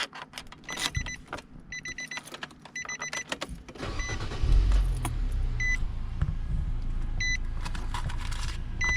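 Car warning chime beeping in quick runs amid key jingles and clicks, then the car's engine starts about four seconds in and settles into a steady idle while a single chime beep repeats about every second and a half.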